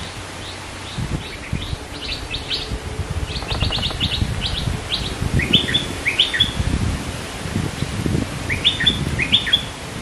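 Bulbul (the Thai 'nok dok taeng') calling: a string of short, high chirps with a quick rapid run a few seconds in, then quick rising whistled phrases, two pairs of them in the second half.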